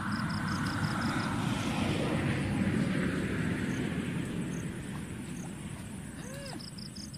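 A distant engine passing, swelling to its loudest two to three seconds in and then fading away. An insect chirps over it in short trains of quick pulses.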